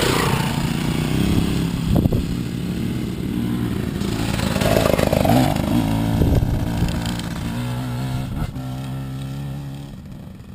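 Enduro dirt bike engine running as the bike pulls away from close by and rides off, its sound fading away near the end.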